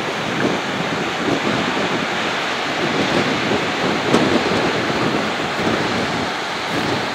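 Wind buffeting the microphone: a steady rushing roar with irregular gusty swells.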